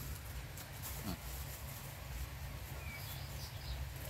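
Quiet outdoor ambience: a steady low rumble with a few faint, short bird chirps.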